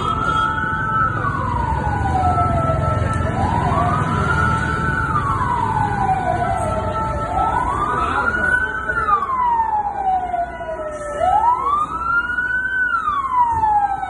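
Emergency vehicle siren wailing: the pitch climbs quickly, then sinks slowly, in repeating cycles of about four seconds each, over a low rumble.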